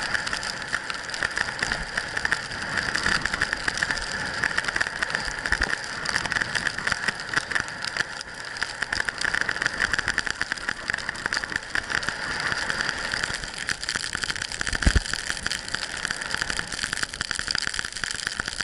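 Skis sliding and scraping over packed snow while skiing downhill, a continuous crackling hiss. A single low thump about fifteen seconds in.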